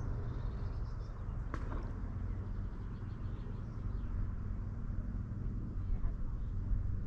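Outdoor forest ambience: a steady low rumble with faint bird calls, and one sharp click about a second and a half in.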